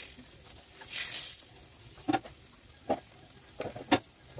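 Flatbread dough hissing briefly as it is laid on a hot iron tawa, followed by a few sharp clicks and knocks of kitchenware.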